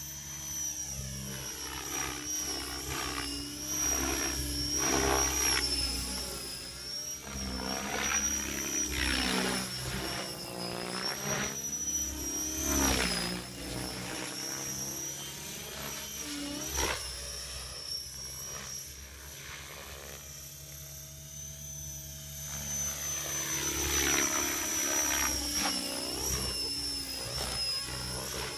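Electric Align T-Rex 600 RC helicopter in flight: a steady high-pitched motor and gear whine with rotor noise, swelling and fading several times as it flies passes near and away.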